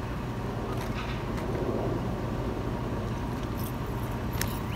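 Steady low background rumble with no clear single source, and a faint click near the end.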